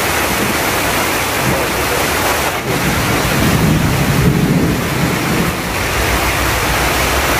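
Heavy rain falling in a steady hiss, with water pouring off the awnings onto the wet ground; a low rumble swells briefly in the middle.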